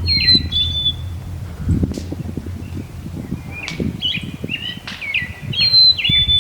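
Osprey calling: short, high whistled notes in two bouts, one at the start and another from about four seconds in.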